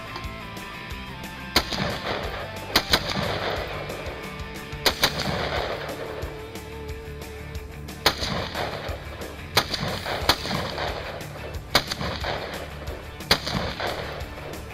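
Rifle shots from an AR-style semi-automatic rifle: about ten sharp cracks at uneven spacing, two of them fired in quick pairs, each trailing off in a short echo. Background music plays underneath.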